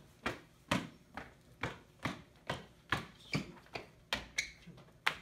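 Footsteps on a hard floor: one person walking briskly away, a little over two steps a second.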